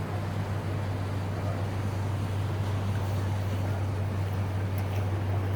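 A steady, unchanging low engine-like hum over a wash of wind and water noise.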